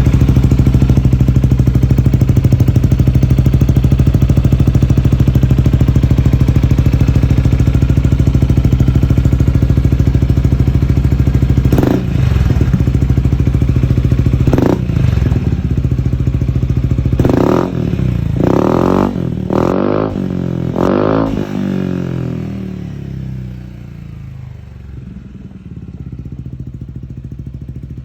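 Yamaha XMAX 300's single-cylinder four-stroke engine through a KOU Power aftermarket exhaust, idling steadily, then blipped: two short revs, then four quick revs in a row. After that it runs on much quieter.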